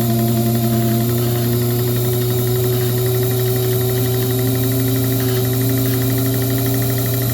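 Watchmaker's lathe electric motor running steadily, a continuous hum whose pitch creeps slightly higher. It sounds strained; the owner blames a foot-pedal speed control set too tight.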